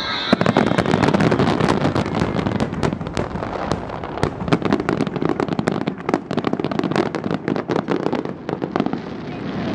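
Aerial fireworks bursting in quick succession: a dense run of sharp cracks and bangs that thins out near the end.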